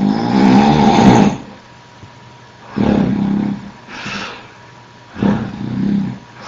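A man snoring loudly into an online voice-chat microphone: three heavy, rasping snores about two and a half seconds apart, with a softer breath between the second and third.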